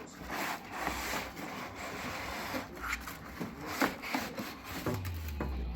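Packaging rubbing and scraping as a boxed appliance is unpacked, with scattered light knocks. A low hum comes in briefly near the end.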